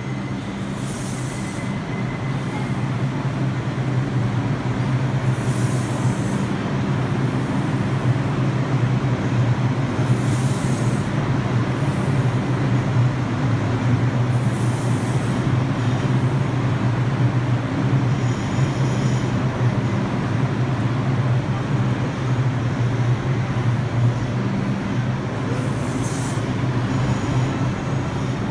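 Subway train standing at the platform with a steady low hum. Short hisses come every few seconds.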